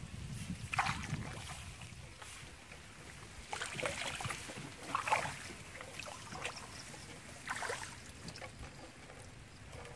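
Hands splashing in shallow water and pulling at wet grass, with several short splashes, over a low wind rumble on the microphone.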